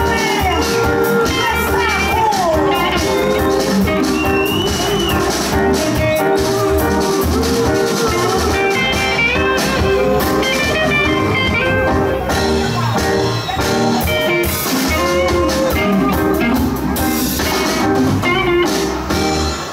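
Live band playing a song with drums, bass and electric guitar, with sustained melody notes over a steady beat.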